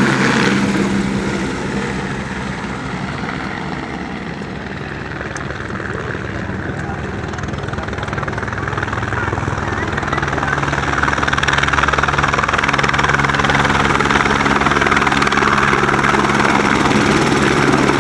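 Helicopter rotor and turbine noise: one helicopter fades away as it leaves, then a second grows louder from about eight seconds in as it approaches and hovers in to land on the helipad.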